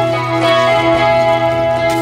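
Instrumental background music with long held notes over a steady low note.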